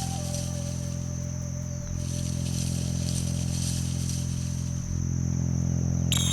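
Crickets trilling steadily in a high pitch over a low sustained drone. A thin held tone also runs underneath, and music with bright rising notes comes in near the end.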